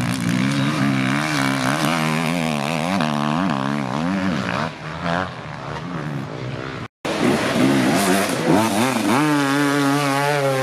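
Enduro motorcycle engine revving hard, its pitch rising and falling quickly as the rider works the throttle over rough ground. It breaks off abruptly about seven seconds in, and another bike's engine comes in straight after, revving on a steep climb.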